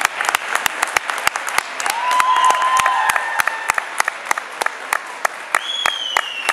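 Audience applauding, with loud claps falling in a steady rhythm of about three a second over the general clapping. A couple of drawn-out high cries from the crowd come around the middle and again near the end.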